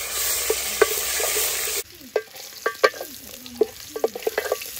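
Chopped onions frying in oil in an aluminium pot, sizzling, while a wooden spoon stirs and knocks against the pot. About two seconds in the sizzle drops much quieter, leaving a quick run of spoon clicks and scrapes on the metal.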